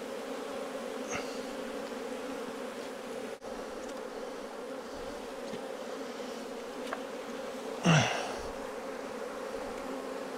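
Honeybees buzzing steadily around an opened nuc hive, a low continuous drone from many bees in flight. One brief louder sweep, falling in pitch, comes about eight seconds in.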